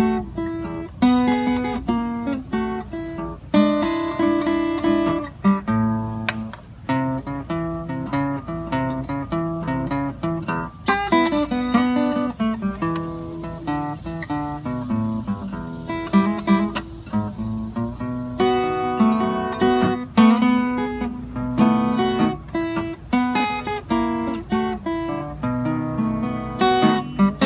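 Solo acoustic guitar playing a country blues instrumental introduction: picked treble notes over a running bass line.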